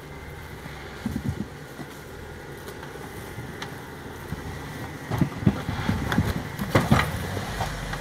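Jeep Wrangler Rubicon engine running at low revs as the two-door crawls over creek-bed boulders, with a run of sharp knocks and clunks, a few about a second in and more from about five seconds on, the loudest near the end.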